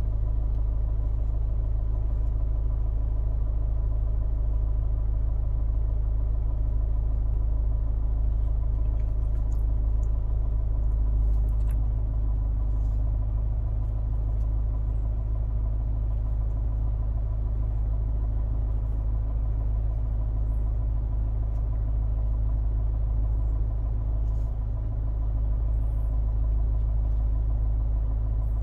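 Car engine idling, heard from inside the cabin as a steady low rumble while the car stands still.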